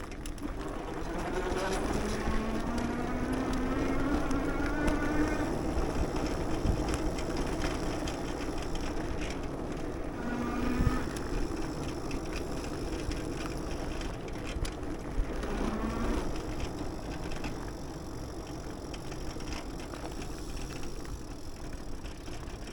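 Wind and rolling noise of a bicycle ride, with a motor tone that rises slowly in pitch for a few seconds starting about two seconds in. Two shorter, similar tones come later.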